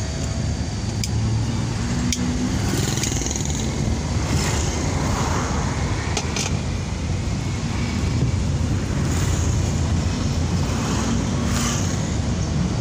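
Cabin noise of a Daihatsu Ayla, whose small three-cylinder engine is heard with road rumble as a steady low drone while the car drives slowly in traffic. Motorcycles and other traffic can be heard close around it, along with a few light clicks.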